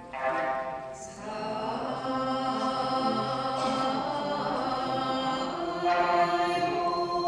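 A group of voices singing an Okinawan-style Miyako folk song together in long held notes, accompanied by sanshin. New phrases come in about a second in and again near the end.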